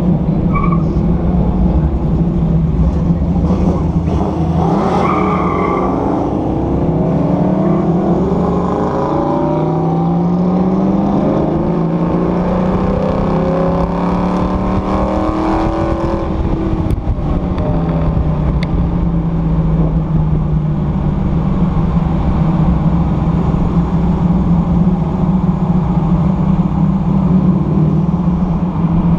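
Sunbeam Tiger's Ford V8 engine running at parade-lap pace, heard from inside the car, with road noise. Through the middle the engine note rises and falls as the car accelerates and eases off, then it settles to a steady drone.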